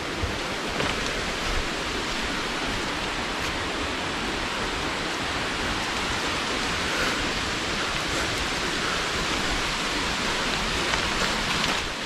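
Steady rush of falling water from a small forest waterfall.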